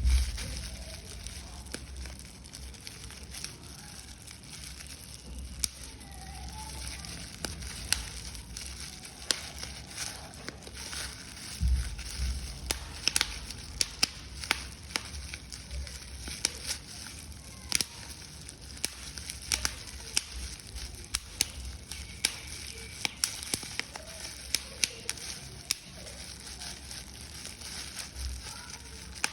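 Paper being crumpled and crushed by hand: continuous irregular crackling with sharp crinkles, busiest in the middle stretch. A few low thumps from handling come at the start and again about twelve seconds in.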